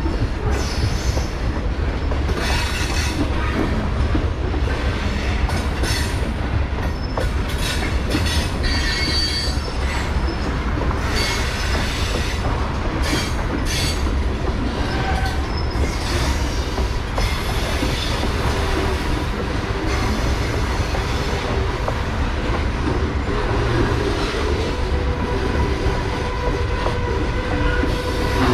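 Freight hopper cars rolling slowly across an old railroad bridge. A steady low rumble is broken by repeated metallic knocks and clanks from the wheels and the bridge deck, with thin wheel squeals at times.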